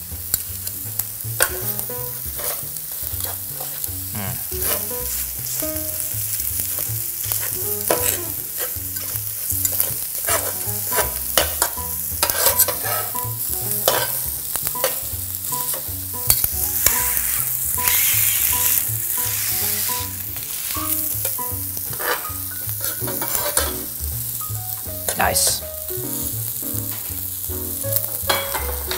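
Eggs sizzling and frying on a hot griddle as they are scrambled. A metal spatula and fork scrape and tap against the griddle surface again and again over a steady hiss.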